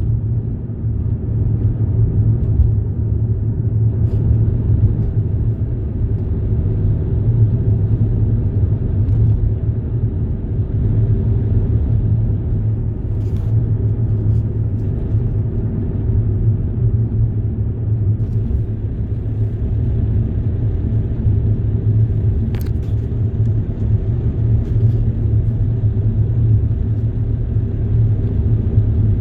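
Steady low rumble of a moving road vehicle, running evenly with no break.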